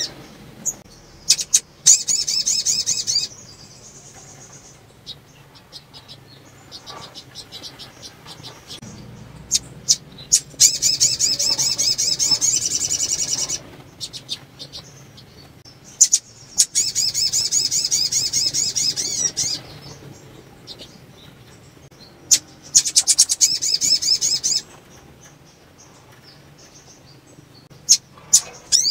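Female sogon (little spiderhunter) calling: four bursts of fast, high, evenly repeated notes, each one and a half to three seconds long, with sharp single chips between them. It is the call of a female in breeding condition, used to stir male sogon into singing.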